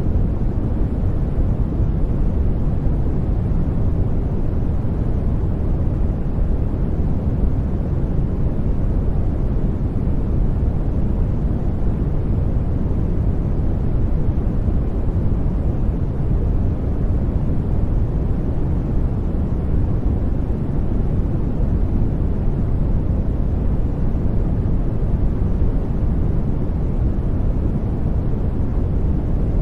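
Steady white-noise-style sleep noise, even and unbroken, weighted toward the low end so it sounds deep and muffled rather than hissy.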